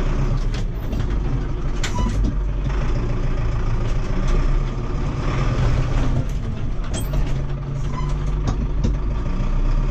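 Zetor tractor's diesel engine running steadily, heard from inside the cab, with several sharp knocks and clanks, the clearest about two seconds in and about seven seconds in.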